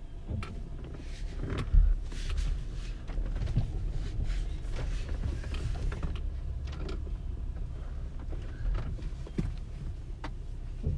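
Low, steady rumble of a car's engine and tyres heard from inside the cabin as it rolls slowly over a dirt lane, with scattered clicks and knocks and a louder thump about two seconds in.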